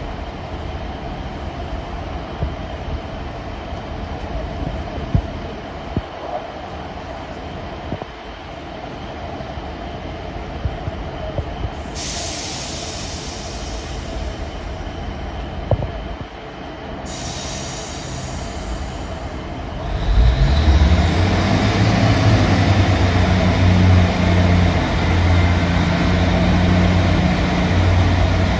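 Diesel multiple-unit trains at a station platform: a steady idling diesel hum, a high-pitched squeal twice near the middle, then about twenty seconds in a diesel engine opens up and runs loudly with a steady low drone.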